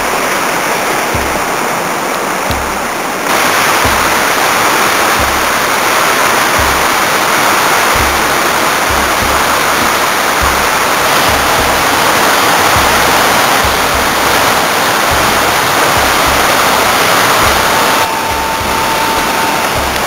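Waterfall rushing, a loud, steady roar of falling water that gets louder about three seconds in and eases slightly near the end, with irregular low thumps beneath it.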